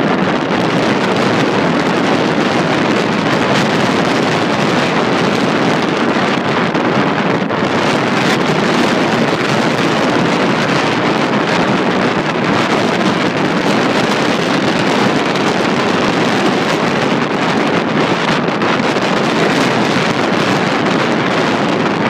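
Steady rush of strong wind blowing on the microphone, mixed with the wash of a choppy sea breaking into whitecaps.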